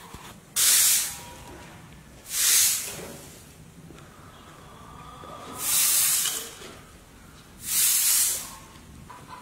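Bamboo-twig broom sweeping a dusty concrete yard: four long swishes, about two seconds apart.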